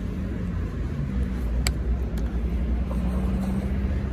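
Xiaomi Mi 1S electric scooter rolling slowly over paving stones: a steady low rumble with a faint hum, and two light clicks about halfway through.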